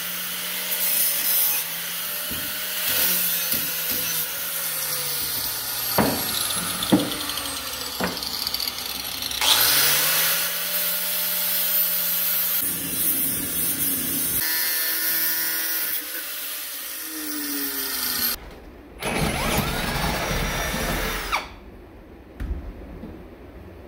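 Corded angle grinder running against steel: a steady motor whine under a grinding hiss. It winds back up about ten seconds in and cuts off near the end, after which a cordless drill runs briefly.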